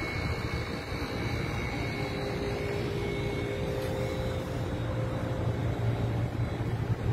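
Sandstorm wind blowing steadily, a low rumble with a faint steady hum above it.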